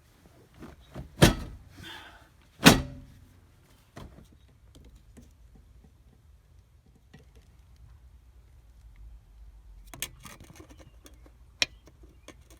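Two sharp knocks about a second and a half apart, the second ringing briefly, from parts being handled and fitted during work on a car's dashboard air-conditioning housing. A few light clicks and rattles follow near the end.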